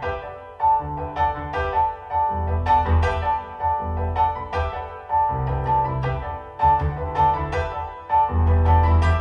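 Piano music played back through Tannoy Kingdom Royal loudspeakers, heard in the room: a bright high note repeated several times a second over deep bass notes that come and go in phrases.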